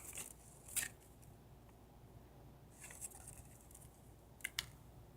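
Faint, brief rustles and clicks of paper and small plastic items being handled, a few scattered through, the sharpest a quick pair about four and a half seconds in.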